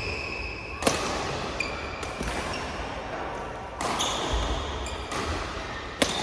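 Badminton rally: sharp racket-on-shuttlecock hits about a second in, around four seconds and just before the end, with short high squeaks of shoes on the court floor between them.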